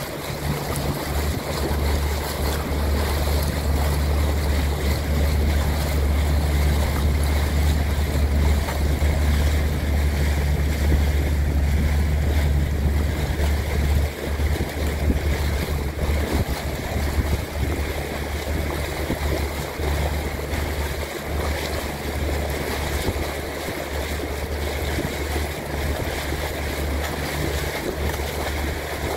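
Steady low rumble of wind buffeting the microphone, over an even wash of water noise.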